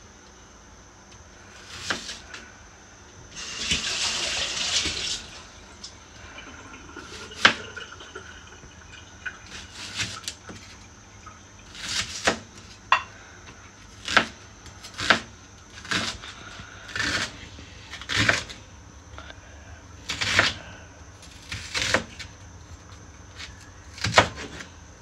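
Chef's knife slicing a red onion on a plastic cutting board: single strokes, each ending in a short knock as the blade meets the board, coming about one to two seconds apart. About three seconds in, a tap runs for a couple of seconds.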